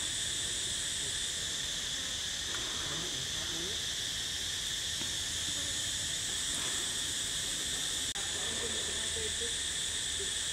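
Steady shrill chorus of insects, an even high-pitched drone that never lets up.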